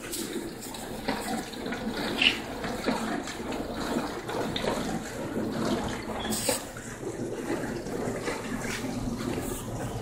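Dishwasher running a wash cycle with hand dishwashing liquid in it, water rushing and splashing inside as the suds overflow; the wrong soap is what makes the machine foam over. A few knocks sound over the water, the loudest about two seconds in.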